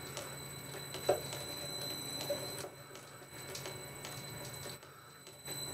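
Boxford lathe running at low speed while an M8 die in a die holder cuts a thread on the end of a chuck key's bar: a steady hum and high whine with light regular ticking, and a sharper click about a second in. The sound drops away briefly near the end, then picks up again.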